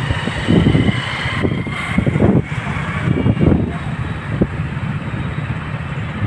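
Road traffic heard from a moving vehicle: a steady low rumble of engine and tyres, with about four louder surges in the first half.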